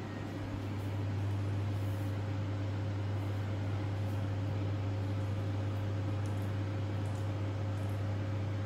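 Steady low electrical or motor hum with a faint even hiss, growing slightly louder about a second in.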